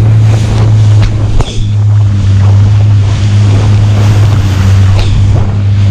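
Jet ski engine running steadily under way, a constant low drone mixed with rushing water spray and wind on the microphone. About a second and a half in, the sound briefly drops.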